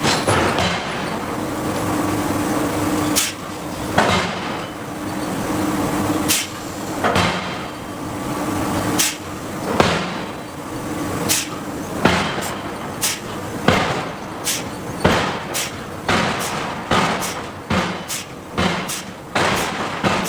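Hydraulic forging hammer striking hot steel, over a steady machine hum. The blows come a second or two apart at first and quicken to about two a second near the end.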